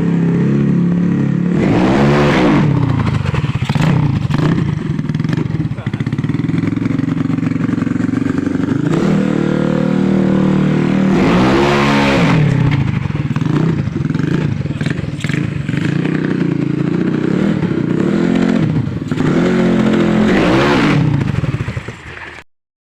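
Bored-up 200cc Yamaha Mio Soul single-cylinder scooter engine with a 65.5 mm Tiger piston, running and being revved up and back down several times, with longer revs around the middle and near the end. The sound cuts off suddenly near the end.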